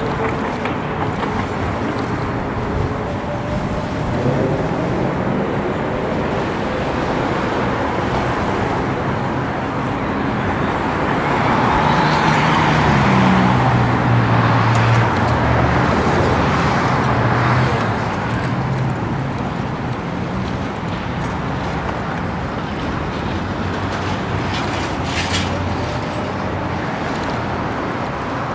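Road traffic and the rush of air heard from a moving bicycle. About halfway through, a passing motor vehicle's engine grows louder for several seconds, its pitch rising and falling, then fades back into the traffic.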